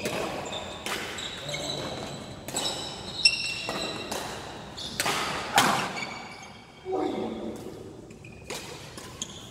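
Badminton rally: sharp cracks of rackets hitting the shuttlecock, the loudest a little after three seconds and at about five and a half seconds, echoing in the hall. Between the hits, shoes squeak on the court floor.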